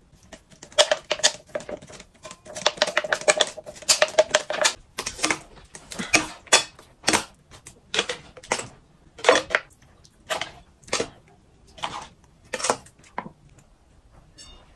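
A plastic water bottle being filled with melted chocolate and worked with a spatula: a dense run of crackles and clicks for the first few seconds, then single sharp clicks about every two-thirds of a second as the spatula scrapes chocolate into the bottle's neck.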